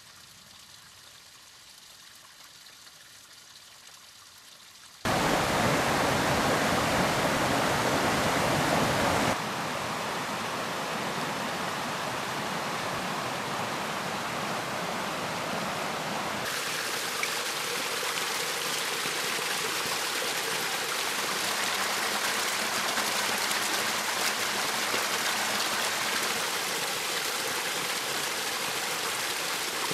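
Stream water rushing and splashing over rocks, a steady rush that jumps abruptly in loudness between shots: quieter for the first few seconds, loudest for a few seconds after that, then steady.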